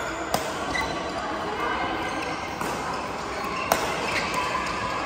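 Badminton rally: two sharp racket strikes on the shuttlecock about three seconds apart, with shoes squeaking briefly on the court floor between them. Background voices and the echo of a large hall run underneath.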